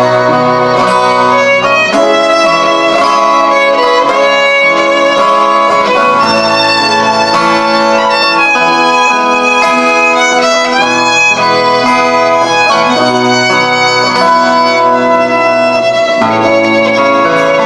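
Fiddle playing the tune of an instrumental passage of a folk song, with sustained lower accompaniment underneath.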